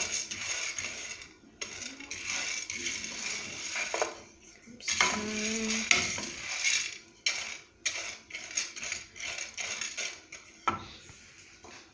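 Sunflower seeds being stirred in a dry pan while roasting: the seeds and the stirring utensil rattle and scrape against the pan in several stretches, with short pauses between.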